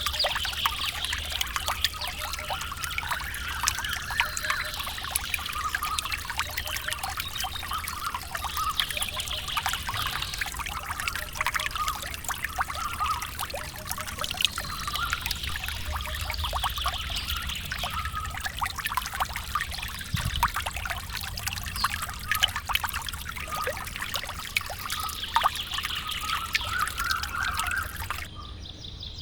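A steady trickling, pouring sound made of dense fine crackles, with repeated high chirps over it. It stops about a second before the end.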